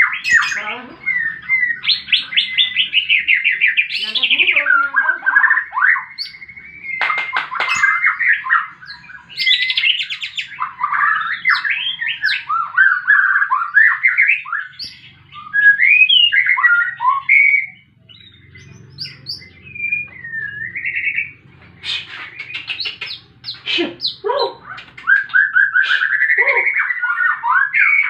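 White-rumped shama (murai batu) singing: a rapid, varied run of rising and falling whistles, trills and sharp chattering notes, in the combative fighting song used to provoke other shamas into singing. The song eases to a few scattered notes about two-thirds of the way through, then picks up again with sharp calls and full phrases.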